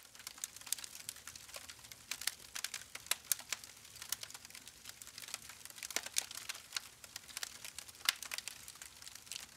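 Log fire crackling, with frequent irregular snaps and pops over a soft hiss, a few much louder than the rest.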